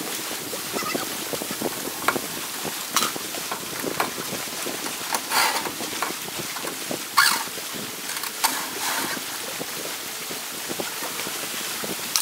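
Lake water lapping and splashing around people wading waist-deep, with wind on the microphone and several short splashes scattered through.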